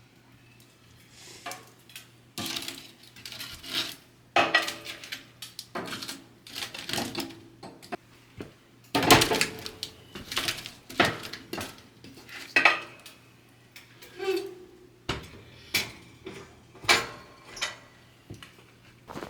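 Dishes and metal utensils clinking and clattering: a run of irregular sharp knocks, some ringing briefly.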